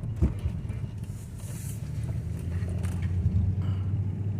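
A 2002 Mercedes CL500 being driven, heard from inside the cabin with the windows down: a steady low engine and road rumble with wind noise, and a brief knock just after the start.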